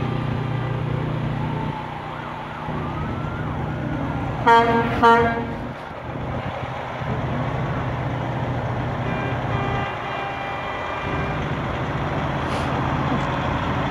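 Semi truck's diesel engine running steadily as it rolls slowly past, with two short horn blasts about four and a half seconds in.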